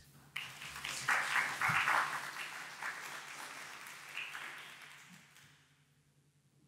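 Audience applauding at the end of a talk. The clapping starts abruptly, is loudest in the first couple of seconds, then thins out and dies away about five seconds in.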